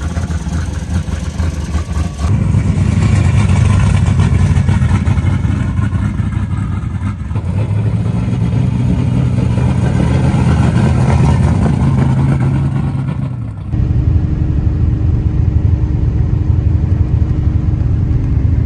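A built truck's engine running hard through a full exhaust: a loud, continuous drone whose pitch climbs slowly, with abrupt changes in level and tone about 2 seconds in and again about 14 seconds in.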